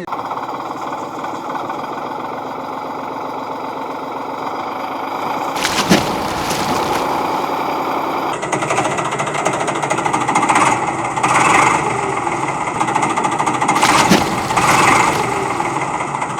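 A small motor running steadily with a rapid mechanical rattle. The sound shifts about five and eight seconds in, with a couple of sharp knocks.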